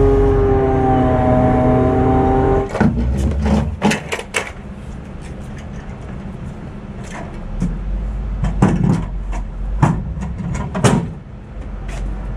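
Truck-mounted loader crane's hydraulics running with a steady whine, with the pitch shifting slightly, then cutting off suddenly about three seconds in. After that comes a scattering of sharp metallic knocks and clanks.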